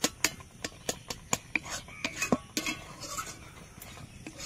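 A utensil stirring semolina cooking in milk and sugar in a pot, clicking and knocking against the pot in quick irregular strokes with soft scraping between them, as the mixture thickens into dough.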